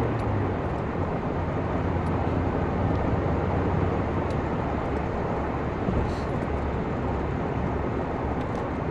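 In-cabin sound of a 2005 Ford Mondeo 2.0 TDCi four-cylinder turbo diesel accelerating in fourth gear towards motorway speed: a steady engine drone under tyre and wind noise. The engine note drops slightly about half a second in.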